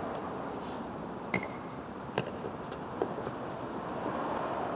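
Steady running noise of a fire engine with three sharp clicks about a second apart, the first ringing briefly.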